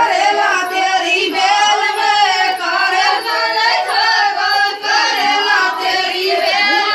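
Desi-style singing of a Gurjar rasiya folk song in a high voice, the melody bending up and down without a break.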